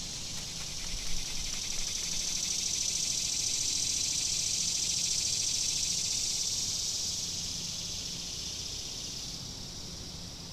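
An insect's high, rapidly pulsing buzzing trill. It swells to its loudest midway and then slowly fades.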